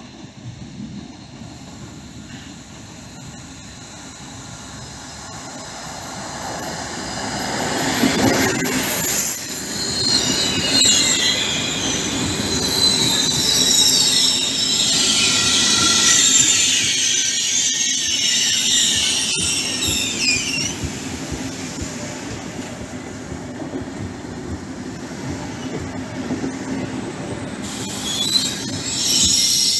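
PKP Intercity Pendolino (ED250) electric train coming in and rolling slowly along the platform. Its wheels squeal in wavering high tones for about ten seconds in the middle, over the rumble of the cars, which grows louder as the train draws near.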